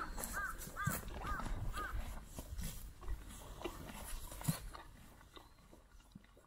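A bird calling in a quick run of about five caws during the first two seconds, then scattered knocks as the sound fades down.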